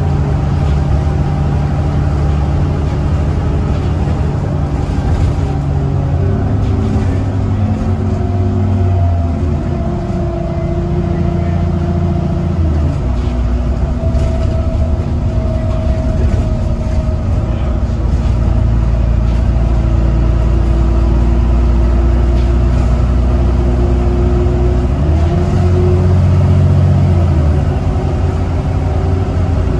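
VDL DB300 double-decker bus's diesel engine and drivetrain, heard from inside the passenger saloon while the bus drives along. A steady, loud drone whose note climbs and then drops several times as the gearbox changes gear, with road and body noise underneath.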